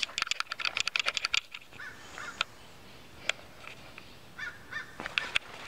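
Rustling and clicking of a handheld camera rubbing against clothing. It is dense for the first second and a half, then sparser with a few scattered clicks.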